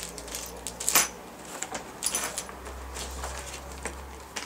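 Small plastic zip bags of CPU-cooler mounting hardware rustling and crinkling in the hands, with light clinks of the small metal parts inside and one sharper click about a second in.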